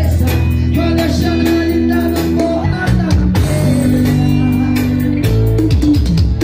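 Loud amplified music with a singing voice, a strong bass line and steady drum beats.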